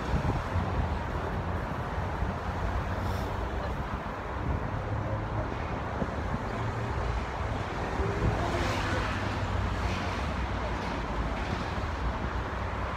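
Street traffic noise: cars passing on a busy city road, steady throughout, with a louder swell from a passing vehicle about eight seconds in.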